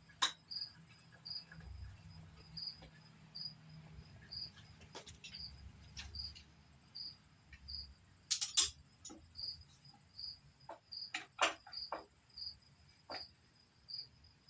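A cricket chirping evenly, a little more than once a second, high-pitched. Over it come scattered sharp clicks and knocks, loudest about eight and eleven seconds in, from bar clamps being handled and tightened on a freshly glued cutting board.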